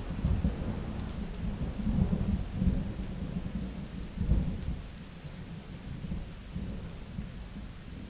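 Breaking ocean surf and whitewater washing around a kayak, heard as an uneven low rumble. It is loudest at first and settles lower from about five seconds in.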